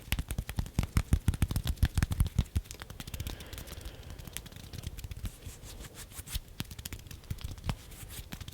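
Hands moving and fluttering close to a microphone: a rapid patter of fingertip clicks and soft thuds, densest in the first three seconds, then thinning to scattered clicks.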